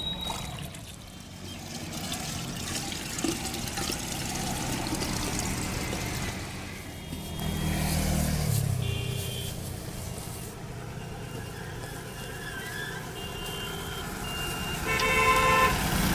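Street traffic running by, with vehicle horns tooting several times and a louder horn blast near the end.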